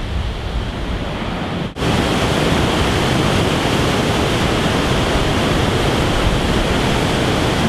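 Dam spillway in flood: heavy rain runoff pouring over the crest and churning down the spillway chute in a loud, steady rush. The sound starts about two seconds in, after a brief break; before that there is a quieter steady rushing.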